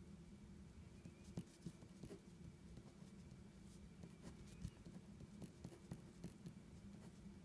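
Faint scratching and light ticking of a ballpoint pen writing on paper, over a low steady hum.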